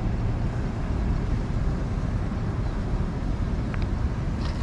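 Steady low rumbling outdoor noise, with a few light clicks near the end.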